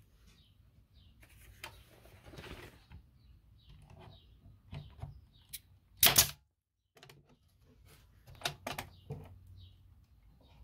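A RIDGID 18-gauge pneumatic brad nailer firing with one loud, sharp shot about six seconds in. Lighter clicks and knocks come before it and a couple of seconds after.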